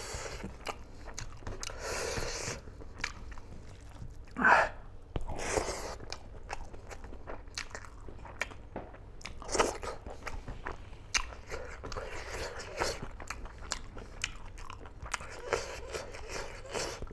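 Close-up eating sounds of a man chewing and biting mouthfuls of smoked pork with bamboo shoot and rice: wet, crunchy chewing with irregular clicks and smacks, a few louder near four and a half and nine and a half seconds in.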